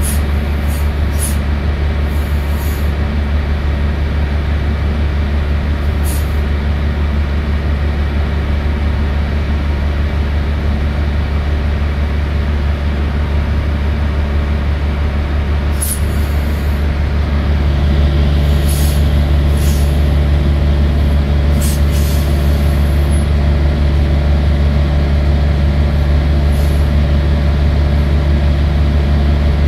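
Semi-truck diesel engine running, heard from inside the cab as a steady low rumble. About eighteen seconds in it gets louder, with a steadier hum added. Brief high hisses come now and then.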